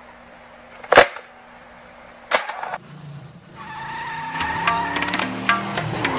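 Two sharp cracks about a second apart over a low steady hum, then a car approaching fast, its engine and tyre noise rising and dropping in pitch as it passes near the end.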